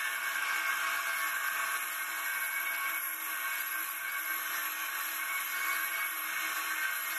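Homemade copying wood lathe running, its carriage-mounted cutter shaving the spinning wooden workpiece: a steady motor whine over the hiss of wood being cut.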